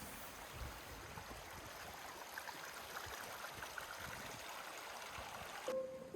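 Faint, steady sound of a running creek's flowing water. Music comes in near the end.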